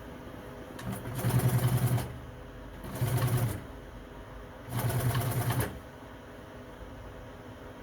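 Sewing machine stitching in three short runs, each a rapid rhythmic chatter lasting under a second.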